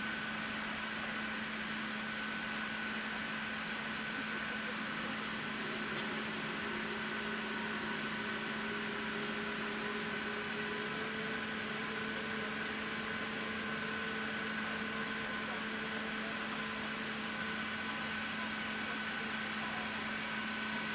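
Steady cabin noise inside an Airbus A380 on the ground before takeoff. It is a constant hum with a steady low tone and a higher whine, and a fainter tone that rises slightly in pitch midway through.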